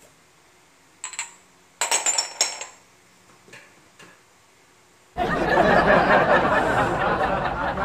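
Glass cupping cups clinking against each other as they are handled, a few light clinks in the first three seconds. About five seconds in, a loud continuous sound starts abruptly and runs on.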